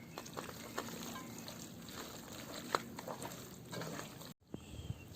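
Raw chicken pieces being stirred into a wet marinade of yogurt, ginger-garlic paste, spice powders and coconut oil: faint soft squelches and light clicks, breaking off for a moment about four seconds in.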